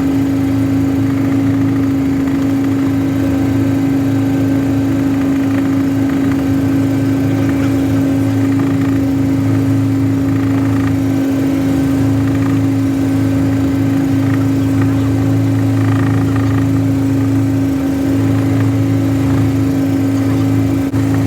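Helicopter in flight: a loud, steady drone of engine and rotor with a constant hum that does not change.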